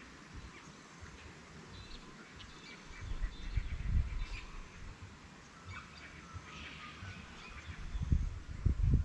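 Birds chirping and calling here and there in riverside bush, with gusts of wind rumbling on the microphone about four seconds in and again near the end.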